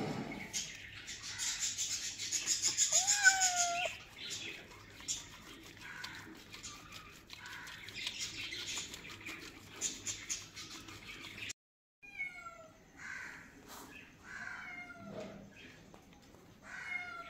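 A wet kitten meowing a few times while being bathed, over a loud rush of noise in the first few seconds. Later come birds chirping in quick falling notes.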